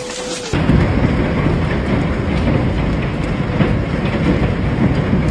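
Hailstorm: hail and heavy rain pelting down as a dense, steady rumbling noise. About half a second in it turns suddenly louder and deeper, and stays so.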